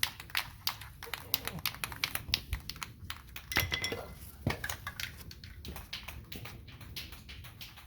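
Aerosol spray-paint can being shaken by hand, the mixing ball inside rattling in a quick, irregular run of clicks.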